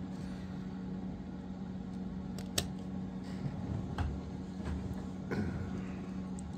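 Steady low background hum, like a fan running, with a few faint small clicks.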